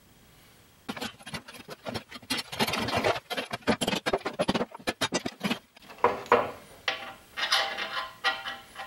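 Steel leaves of a 1962 Dodge D100 front leaf spring clattering, scraping and clanking against each other and the wooden bench as the spring pack is handled and taken apart. The clatter starts about a second in, and in the second half some clanks ring like struck metal.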